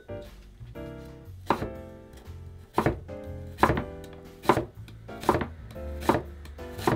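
Chef's knife slicing an onion thinly on a wooden cutting board, each cut ending in a sharp knock of the blade on the wood. The cuts come slowly at first, then steadily at a bit more than one a second, over soft background music.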